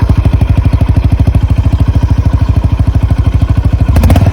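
Honda CB350RS's single-cylinder engine idling through its exhaust with a steady, rapid, bassy pulse. Near the end a louder engine sound takes over.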